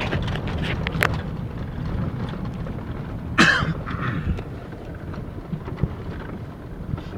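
Car interior noise while driving: a steady low road and engine rumble, with a brief click about a second in and a sharper, louder knock or rattle about three and a half seconds in.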